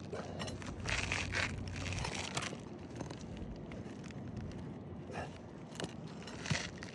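Asphalt shingles scraping and crinkling as a shingle is pried up to get at its staples and nails, with a few sharp clicks of metal.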